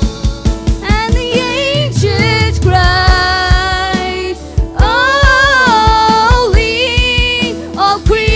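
Worship song: a voice singing held, gliding notes over a steady drum beat and bass.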